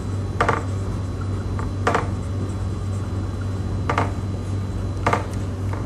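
Marker pen writing on a whiteboard: a few short squeaky strokes, about a second or two apart, over a steady low hum.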